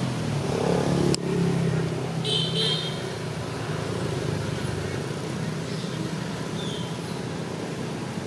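A motor engine hums steadily and low, loudest in the first three seconds. A sharp click comes about a second in, and a brief high chirp follows about two and a half seconds in.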